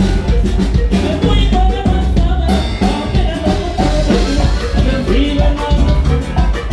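Norteño band with saxophone playing a huapango, with a steady rhythmic beat under the melody.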